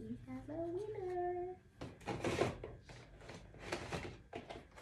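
A woman humming a few notes that wander up and down for about the first second and a half. Then come bursts of paper and cardboard rustling as small product boxes are handled and pulled from a paper gift bag.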